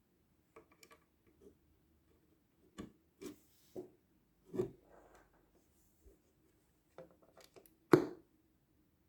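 Intermittent handling noises: a dozen or so short clicks, taps and knocks of small objects being moved or put down, the loudest about eight seconds in.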